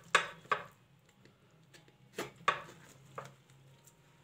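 Kitchen knife cutting through the roasted skin of a whole stuffed duck: about five short, sharp strokes, two right at the start and three more in the second half.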